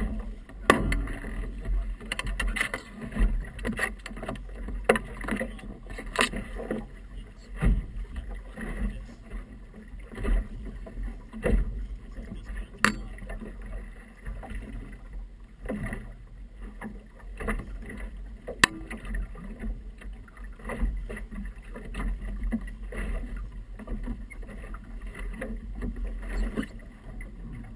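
Small motorboat's hull knocked and slapped by choppy waves: irregular sharp knocks and splashes, several a few seconds apart, over a steady low rumble.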